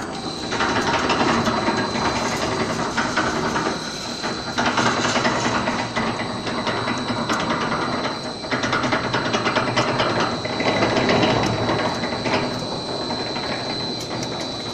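Furring channel roll forming machine running, its forming-roller stations and drive turning with a dense mechanical clatter and a thin steady high whine underneath. The noise swells louder and rougher for a few seconds at a time, then eases, several times over.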